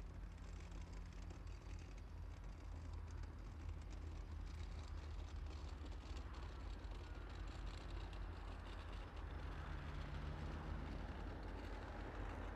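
Diesel locomotive engines running with a steady low drone that grows slightly louder, its note shifting a little about nine seconds in.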